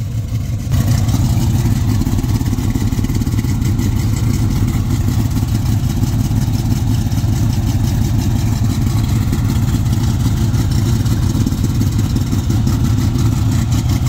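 A 1969 Chevrolet Nova's small-block V8 idling steadily, growing louder a little under a second in.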